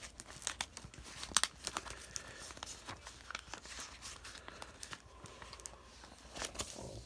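Paper sheets and plastic animation cels crinkling and rustling as they are handled and turned over, with many small scattered crackles.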